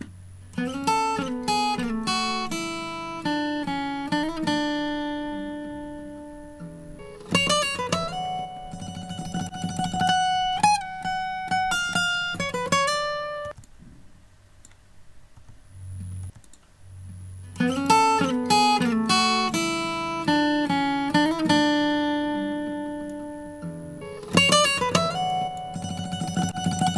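Recorded guitar part played back through a software compressor: phrases of strummed chords and picked notes, some sliding in pitch, each ringing out and decaying. A new phrase begins about every seven seconds, with a quiet gap about halfway through.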